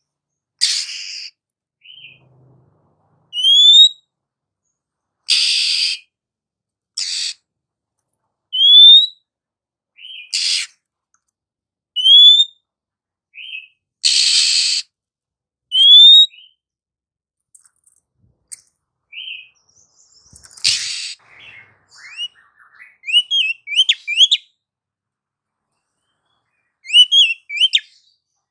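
Female oriental magpie-robin calling: clear upward-sweeping whistles about every two seconds, alternating with harsh, scratchy calls. Near the end it breaks into a quicker run of short rising notes.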